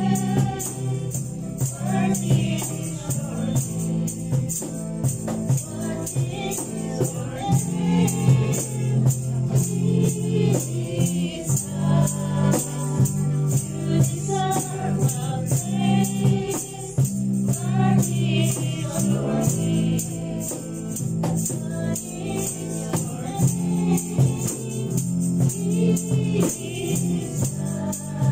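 A Christian worship song sung live by a young girl and women together into microphones. It is accompanied by steady low bass notes and rattling hand percussion keeping an even beat.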